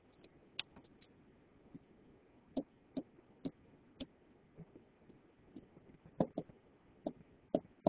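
A scattered, irregular series of faint clicks and taps from a stylus on a tablet screen while words are handwritten.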